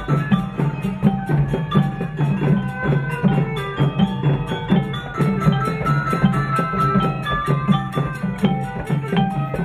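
Cambodian traditional music: steady, busy drumming under a quick melody of short and held notes.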